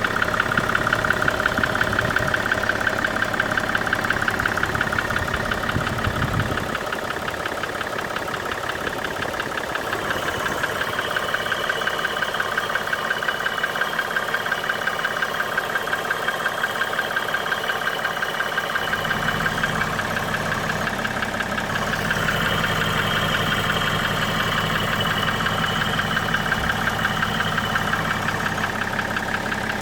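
BMW 535d E60's twin-turbo 3.0-litre straight-six diesel idling with a rapid, even clattering knock. The owner suspects a worn connecting-rod bearing, failing lifters or an injector fault. The low rumble drops away about 6 seconds in and comes back about 19 seconds in.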